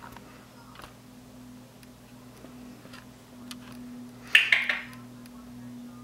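African grey parrot making sharp clicking sounds: scattered single clicks, then a loud quick run of three or four clicks about four seconds in, over a low steady hum.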